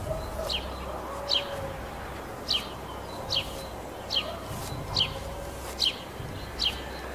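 A bird repeating a short, sharp, falling chirp at an even pace, about once every 0.8 seconds, over a low steady hum.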